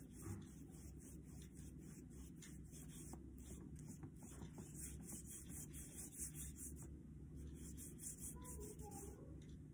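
Faint scratchy swishes of a paintbrush stroked quickly back and forth across paper while blending poster colours, a long run of short strokes that stops just before the end, over a low steady hum.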